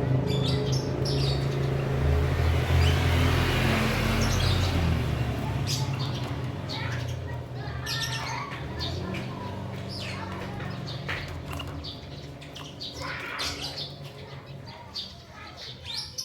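Small cage birds chirping in short, sharp calls that come more often in the second half. Under them, a low rumble fades out over the first several seconds.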